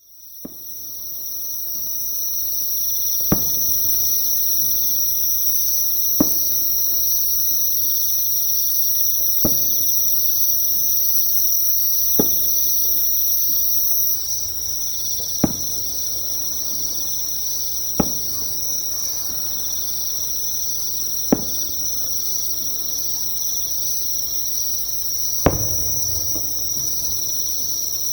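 Insects calling nearby in a steady high-pitched trill, with distant fireworks going off as short sharp bangs about every three seconds.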